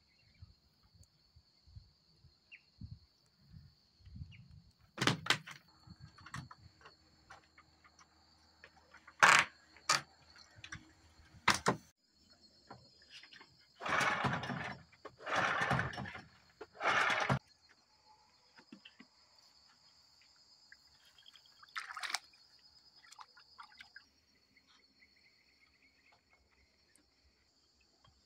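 Outdoor ambience with a steady high-pitched buzz throughout. Several sharp knocks are scattered through it, and about halfway in come three short, splashy bursts of noise in a row.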